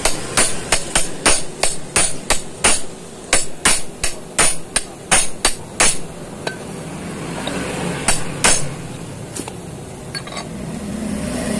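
Hammer blows on a motorcycle crankshaft, pressing its halves together over the crank pin by hand with no press. There are about twenty quick metallic strikes, around three a second, then a few slower, spaced blows in the second half.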